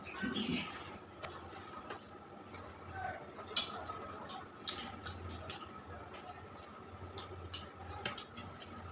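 Eating by hand: fingers mixing rice and curry on a steel plate, with chewing and mouth sounds. It comes as scattered small wet clicks and squishes, the sharpest about three and a half seconds in.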